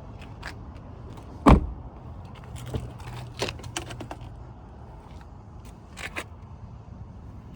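A car door shutting with one heavy thump about one and a half seconds in. A series of light clicks and knocks follows, over a steady low hum.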